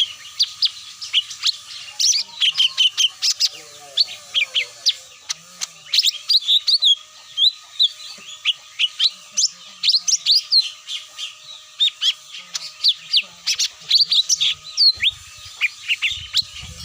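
Cucak mini lure call: a dense, continuous stream of short high chirps and quick downward-sliding notes, many overlapping as if from several birds at once, played to draw wild cucak mini down to the trapper.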